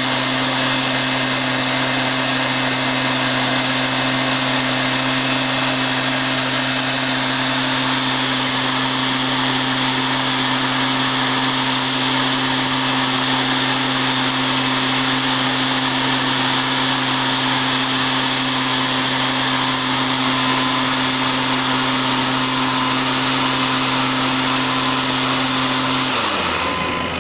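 Backpack blower's small petrol engine running steadily at full throttle with a high, even drone, then dropping in pitch to idle about a second before the end as the throttle is let off.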